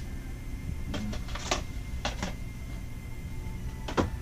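Plastic DVD and videotape cases clacking as they are handled and put onto a shelf: several sharp clicks, the loudest near the end.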